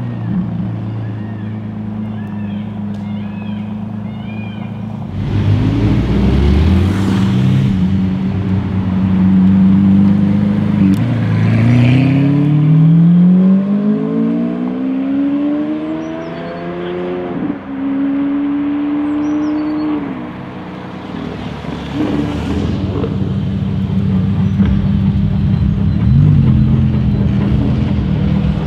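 Lamborghini Centenario's 6.5-litre V12 pulling away, a low steady burble and then loud acceleration with its pitch climbing, a gearshift about 17 seconds in, and a second climb before it fades into the distance. Near the end another supercar engine grows louder as it approaches.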